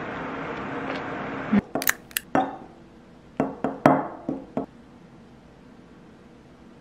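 Metal spoon clinking against a glass dessert bowl while stirring cream cheese and condensed milk: a series of sharp, briefly ringing clinks in two bursts. A steady hiss before them stops about a second and a half in.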